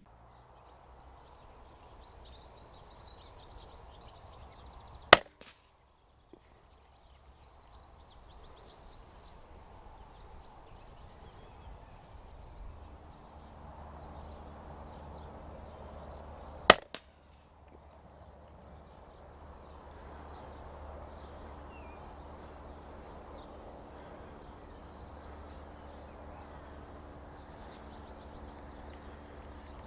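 Two shots from a moderated CZ452 Lux .22LR rifle firing Eley 40-grain subsonic rounds, each a single sharp report, about 5 seconds in and again about 17 seconds in.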